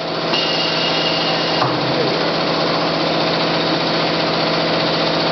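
CNC router running in a machine shop: steady, dense mechanical noise with a constant hum. A high steady whine in the first second and a half stops with a click.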